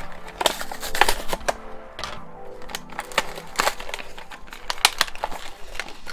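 Clear plastic blister pack crinkling and crackling in irregular snaps, with the cardboard backing peeling away, as a diecast toy car is pried out of its packaging. Background music plays underneath.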